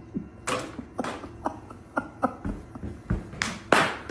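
Plastic pet food bag crinkling in sharp crackles as a cat noses and tugs at it, loudest in a longer rustle about three and a half seconds in.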